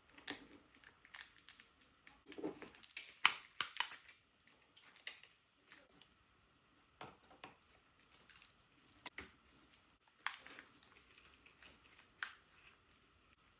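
Faint, irregular clicks, taps and rustles of hand tools and phone parts being handled during a phone screen repair, busiest in the first four seconds and sparser after.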